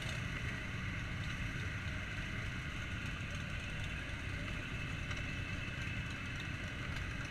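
Many motorcycle engines idling together in a crowd of bikes, a steady even engine sound with no single engine standing out.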